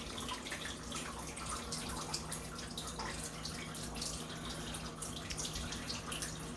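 Water dripping and trickling steadily through a kitchen ceiling, many quick irregular drips and splashes, leaking from a burst hot water heater in the flat above.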